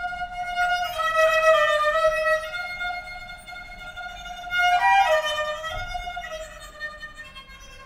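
A small round-framed bowed string instrument with a ring of wooden tuning pegs, played with a bow in long drawn notes. A new stroke starts about a second in and a louder one near five seconds, and the sound dies away near the end.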